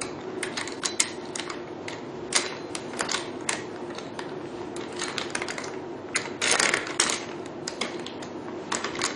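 Chrome metal holder-arm parts of a beauty machine clicking and knocking irregularly as they are fitted together and tightened by hand, with a short scraping rattle about two-thirds of the way through. A steady low hum runs underneath.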